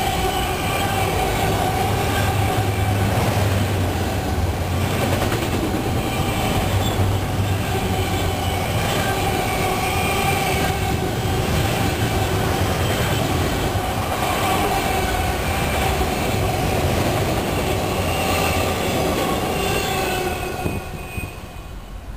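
Freight train of autorack cars rolling past close by: a steady rumble of steel wheels on the rails with squeal tones held over it, typical of wheel flanges on a curve. The sound drops away near the end.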